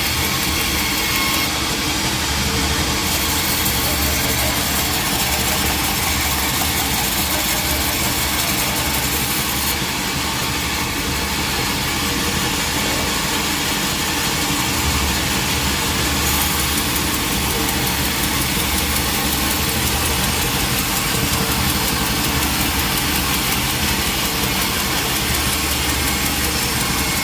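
Sawmill machinery running steadily, a loud engine-like drone with dense noise.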